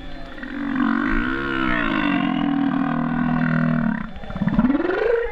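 Humpback whale song heard through the water: a long low call with several stacked tones lasting about three and a half seconds, wavering briefly near its start, followed by a rising whoop in the last second.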